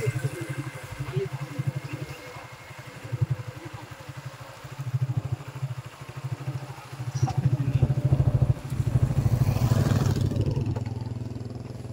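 Small motorcycle engine running as it rides along, its exhaust pulsing steadily, getting louder from about seven seconds in.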